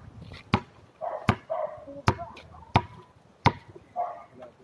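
A basketball being dribbled on a concrete court: five sharp bounces, about one every three-quarters of a second.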